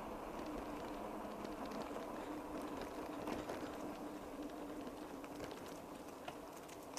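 A bicycle being ridden: steady rolling and wind noise with scattered light clicks, and a faint steady hum that fades out in the last second or two.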